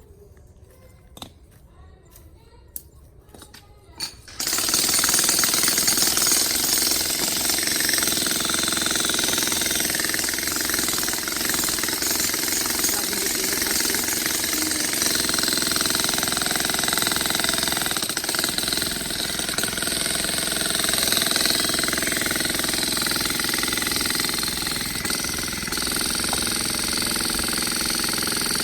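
A few faint knocks, then about four seconds in a loud machine starts suddenly and runs steadily: a dense mechanical noise with a steady whine over it.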